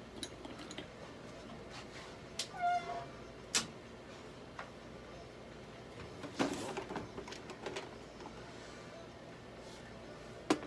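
Domestic cat meowing once, a short meow about two and a half seconds in. Scattered clicks and a brief rustle of handling come around it, with a sharp click near the end as the loudest sound.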